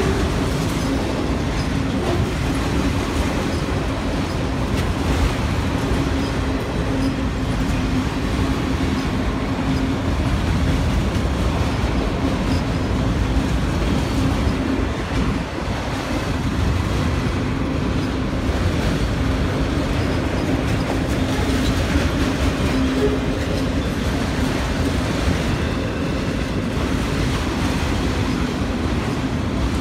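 Freight train of autorack cars rolling steadily past, a continuous rumble and clatter of wheels on rail. A steady low hum runs through most of it and drops out for a few seconds midway.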